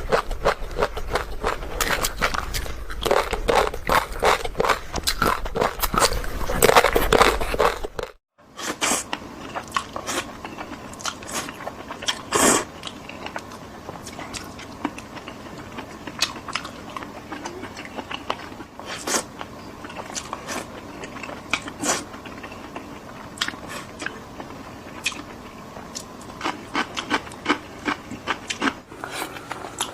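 Close-miked eating of spicy Korean food: wet chewing, biting and mouth smacks, dense and loud for the first eight seconds. After a brief cut at about eight seconds, the chewing goes on quieter, with scattered clicks.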